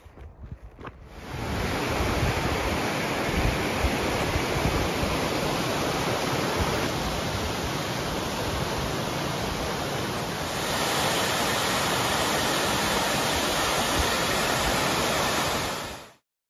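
Mountain stream rushing over rocks, a steady loud rush of water. It starts abruptly about a second in, gets a little louder about two-thirds of the way through, and cuts off suddenly near the end.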